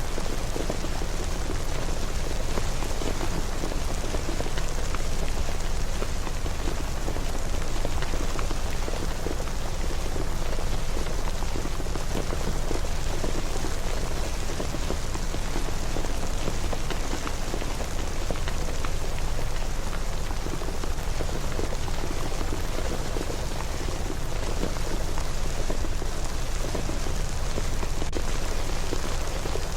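Steady rain falling and pattering on surfaces, an even wash of fine droplet ticks over a deep low rumble.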